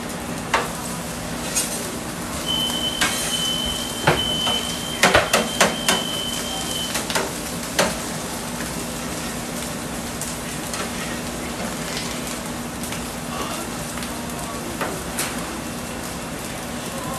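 Fried rice and noodles sizzling on a steel flat-top griddle while metal spatulas scrape and clack against the plate, with a quick run of sharp clacks about four to six seconds in. A thin, high steady tone sounds for about four seconds in the first half, over a low steady hum.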